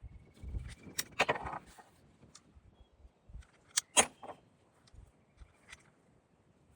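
Scattered light clicks and knocks of objects being handled, the two sharpest close together about four seconds in.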